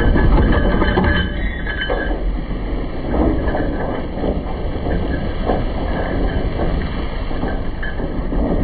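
Heavy steel chain clattering and dragging across a steel deck as it is paid out, over a steady low rumble of the vessel underway.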